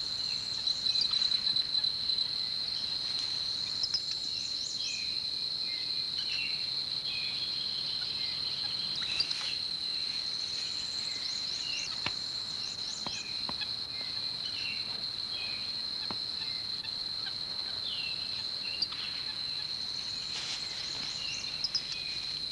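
Forest ambience: a steady, high-pitched insect drone, with scattered short chirps and quick trills from small animals over it, and a few faint clicks.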